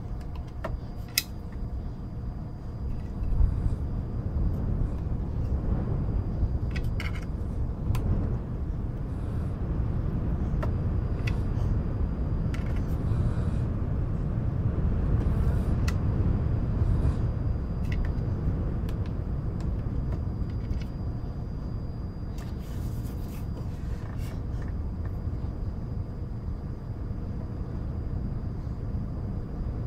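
Steady low rumbling wind and white-noise bed, with scattered light clicks and taps of cardboard jigsaw puzzle pieces being sorted and handled.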